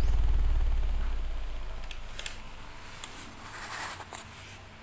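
CT Sounds Strato 18-inch subwoofer playing a deep bass tone from a 25–60 Hz frequency sweep, fading out over the first two or three seconds. Later come a few clicks and a short rustle of styrofoam packing being handled.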